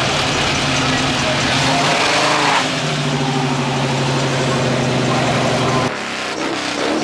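A car engine running steadily, with voices in the background. The sound changes abruptly about six seconds in.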